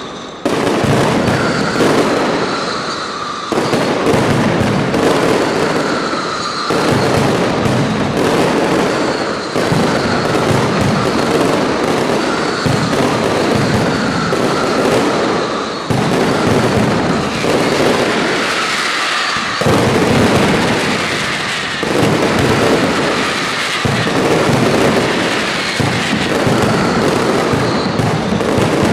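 Mascletà pyrotechnics: a dense, unbroken barrage of firecracker and aerial salute bangs with crackle. It comes in loud waves that fall back briefly and surge again every few seconds.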